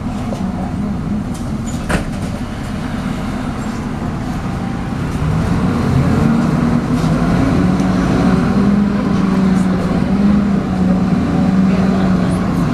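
MAN 18.240LF bus running under way, heard from on board, with the vacuum-cleaner-like whine known as 'hoovering'. The note grows louder and steadier about five seconds in. There is a single sharp knock about two seconds in.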